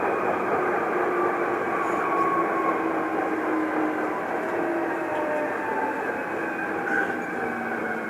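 Hankyu Kyoto Line commuter train running, heard inside the passenger car: a steady rumble of wheels on rails, with several whining tones that slowly fall in pitch.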